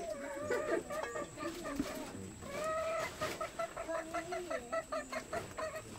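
Domestic chickens clucking in a run of short calls.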